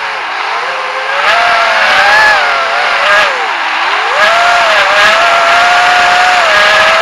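GEPRC AX-5 racing quadcopter's brushless motors whining in flight, the pitch sliding up and down with the throttle, with a deep drop about three and a half seconds in before it climbs back and holds steady.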